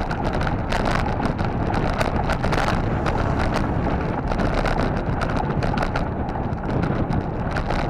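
Wind rushing over the camera's microphone as a bicycle rolls along a paved road, with frequent irregular clicks and knocks.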